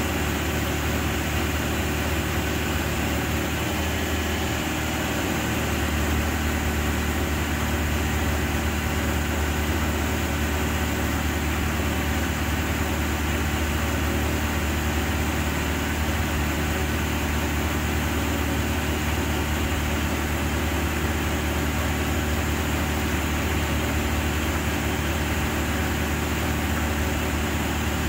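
Genie S-85 telescopic boom lift's engine idling steadily, getting slightly louder about six seconds in.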